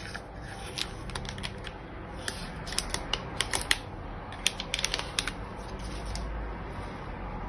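Metal spoon scraping and clicking against the inside of a plastic yogurt cup as yogurt is scooped out, a run of short, sharp, irregular clicks that comes thickest in the middle.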